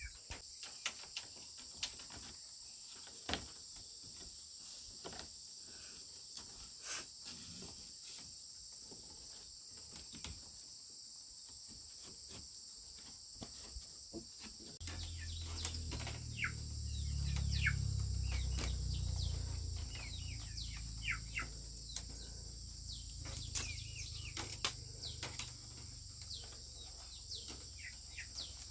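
A steady high-pitched chorus of insects such as crickets, with small clicks and knocks scattered through it. From about halfway in, birds chirp in short falling notes and a low rumble comes in, swells for a few seconds, then eases.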